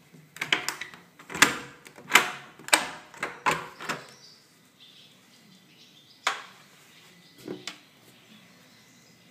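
A wooden door being handled and opened: a run of sharp knocks and clunks through the first four seconds, then two or three more near the end.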